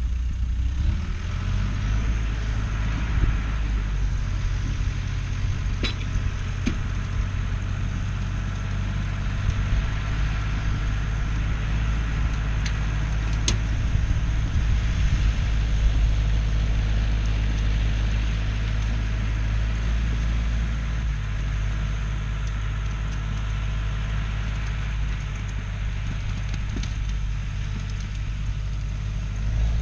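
Bulldozer's diesel engine running steadily at a low drone, with a couple of sharp clicks about six and thirteen seconds in.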